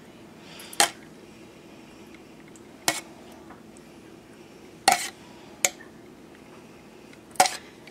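Metal spoon clinking against a tin can and a glass baking dish while tomato sauce is spooned out: five short, sharp clinks a second or two apart.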